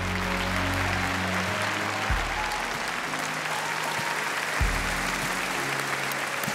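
Audience applauding over soft background music, whose low sustained notes change about every two and a half seconds.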